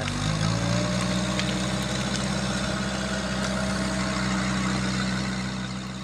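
Sherp amphibious ATV's diesel engine running under load as it pulls a felled tree trunk across a lawn. The engine note rises slightly in the first second, then holds steady, with a faint whine above it.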